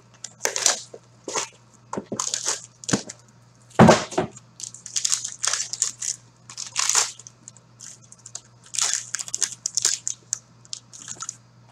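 Hockey card box packaging, cardboard and foil wrap, being pulled and torn open by hand: a run of short ripping and crinkling noises, with a sharper knock about four seconds in, over a faint steady hum.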